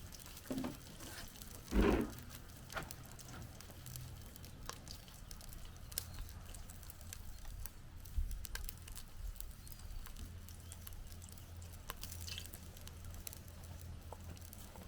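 Scattered faint pops and crackles from bacon grease and chicken skin rendering in a hot cast iron skillet over coals, with a couple of soft thuds in the first two seconds.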